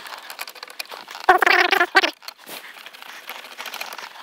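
Rustling and crinkling of packaging with small knocks as parts are pulled out of a cardboard box. About a second and a half in, a short wavering voice-like call stands out above the rustling.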